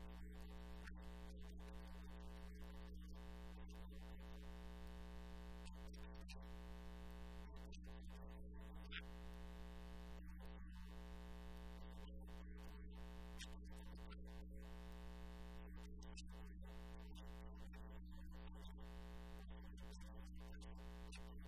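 A faint, steady hum made of several unchanging tones, with no speech.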